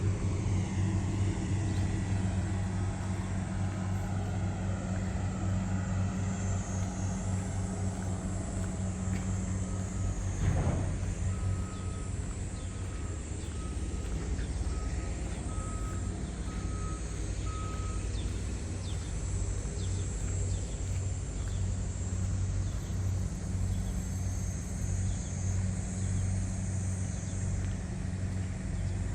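Rice combine harvester's engine running steadily, with a warning beeper sounding a run of short, evenly spaced beeps, about one and a half a second, for several seconds in the middle. A brief knock about ten seconds in.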